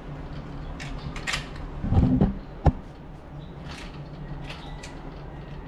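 Objects being handled and set down: scattered light clicks, a dull thump about two seconds in and a sharp knock just after.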